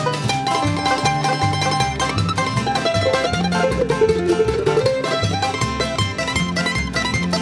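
Upbeat bluegrass-style background music led by plucked strings, banjo or mandolin over guitar, with a steady bass beat.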